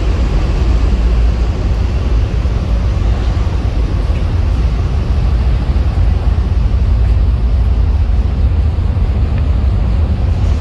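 Steady low rumble and rushing noise on board a ferry under way, with no breaks or sudden sounds.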